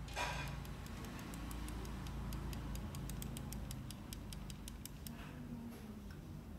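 Faint, light ticking at a few clicks a second, a little irregular, as a small die-cast toy tank's wheels and tracks are rolled by hand across a wooden tabletop.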